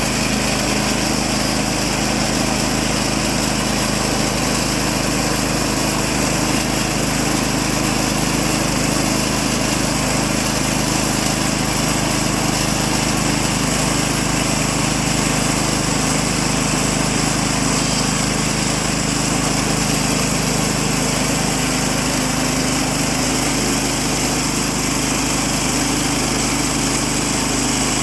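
Petrol engine of a Woodland Mills HM130 Max portable bandsaw mill running steadily at an even speed.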